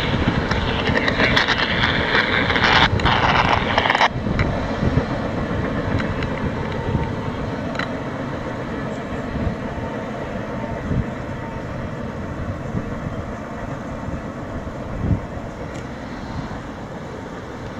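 Double-stack intermodal freight train's cars rolling away on the rails, a steady rumble that slowly fades as the train recedes. A sharper hiss rides on top for the first four seconds and stops abruptly.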